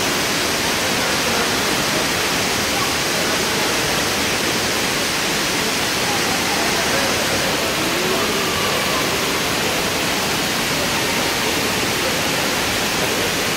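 Steady rushing-water noise of an indoor water park, echoing in the hall, with faint voices mixed in.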